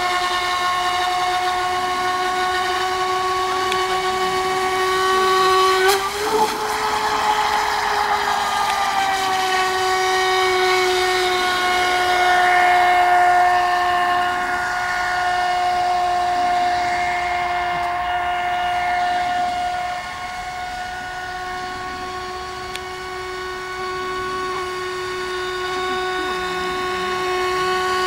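Battery-powered radio-controlled racing boat's electric motor whining steadily at high speed. The pitch jumps up briefly about six seconds in, and the whine turns quieter about twenty seconds in.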